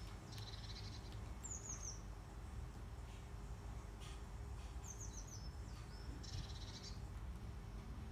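A songbird singing a few short, high-pitched phrases of quick falling and twittering notes, with pauses between them, over a faint low background rumble.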